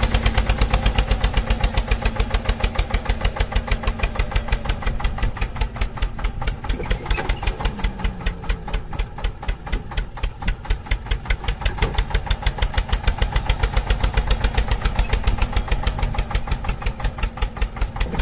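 Tractor engine running with a rapid, even chug.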